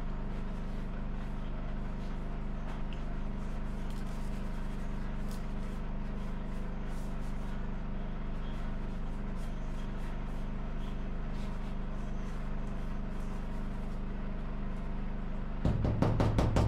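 Steady hum of a running motor or engine. A rapid run of knocks starts near the end and is the loudest sound.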